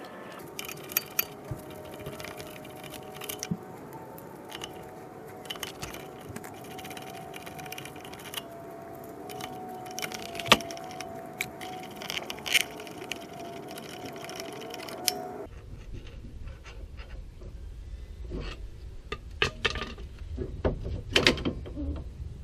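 Hand tools clinking and clicking on metal as the bolts holding the rear wheel bearing to the knuckle are worked loose with an Allen key, in scattered sharp clicks. A steady hum sits under the clicks and stops suddenly about fifteen seconds in, giving way to a low rumble.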